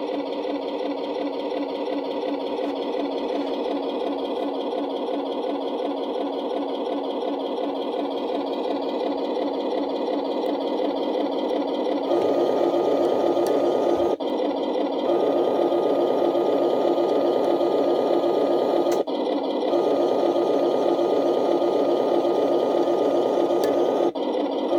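Simulated tank engine sound from the M3 Grant/Lee RC model tank's built-in sound unit, a steady buzzy run. About halfway through it steps up louder and a thin steady whine joins it, with a few brief breaks.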